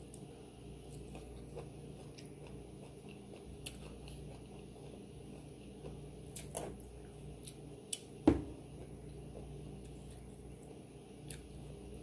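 Close-miked eating: chewing and soft mouth sounds with scattered light clicks. A sharp knock a little past eight seconds in is the loudest sound.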